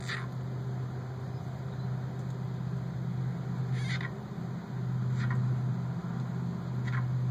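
Short, high animal chirps, four of them at gaps of one to two seconds, over a steady low hum.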